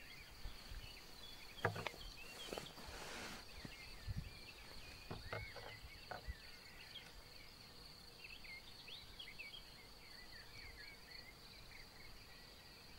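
Faint outdoor ambience of many birds chirping over a steady high insect trill. A few sharp knocks sound in the first few seconds, the loudest at just under two seconds in, with a brief rush of noise soon after.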